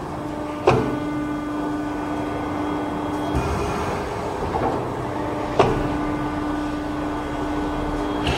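Hydraulic shearing machine running through its cycle: a steady hum from the hydraulic system, broken by a sharp metallic clack about a second in and again about five and a half seconds in, with the hum changing briefly between them.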